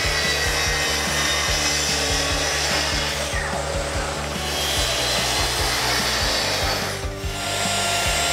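Track saw running and cutting along its guide rail through pine panels, the noise dipping briefly a few seconds in. About seven seconds in it gives way to a router cutting along a board. Background music with a steady beat runs underneath.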